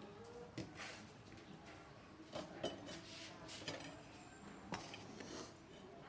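Light, scattered clinks and knocks of kitchen utensils and dishes being handled during food preparation, about seven short strikes at irregular intervals.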